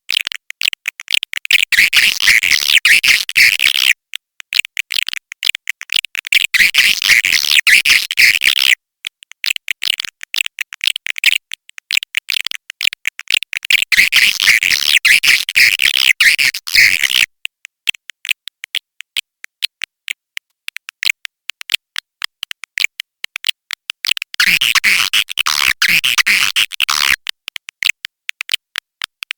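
Swiftlet call recording of the kind used to lure swiftlets into a nesting house: rapid dry clicking throughout, broken by four stretches of buzzy twittering chirps.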